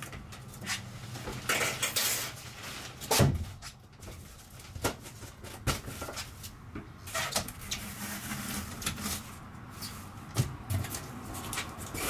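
Cardboard mock-up panels and cabinet doors being folded and handled: scattered knocks and scrapes, the loudest about three seconds in.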